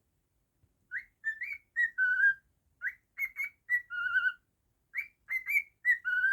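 Cockatiel whistling a learned tune: a phrase of quick clear notes ending on a longer, lower held note, sung three times over starting about a second in.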